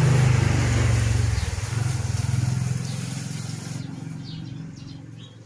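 A passing vehicle's engine, a steady low hum that fades away over about four seconds.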